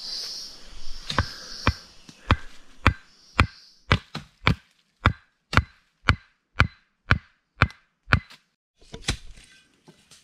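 Wooden stakes being hammered into the forest floor to set a spring snare trap for wild pigs: a steady run of about fourteen sharp, woody knocks, roughly two a second, ending about eight seconds in, followed by a few softer knocks and rustling.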